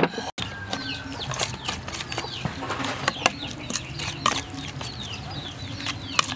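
A metal spoon tossing salad in a stainless steel bowl, clinking sharply against the bowl at irregular moments. Chickens cluck throughout.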